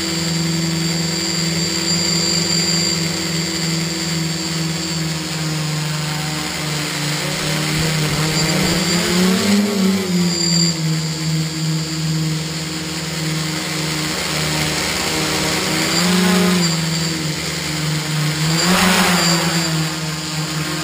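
Tricopter's electric motors and propellers whirring at a steady pitch, rising briefly in pitch three times, about ten, sixteen and nineteen seconds in.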